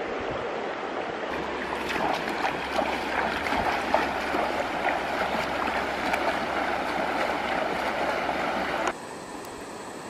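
Shallow river running over stones, with splashing as a person wades through the water. About nine seconds in, the sound drops abruptly to a quieter, steady flow of water.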